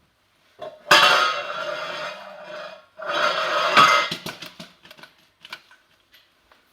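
Metal clattering and rattling with a ringing tone, in two long spells, followed by a few scattered light clicks and knocks.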